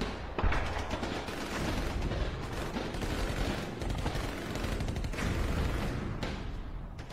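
Dense gunfire: many rapid shots running together in a continuous clatter, with heavy low thuds underneath.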